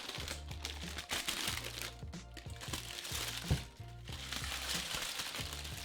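Packaging wrap crinkling and rustling as a statue part is unwrapped, with a single sharp click about halfway through, over background music with a steady bass line.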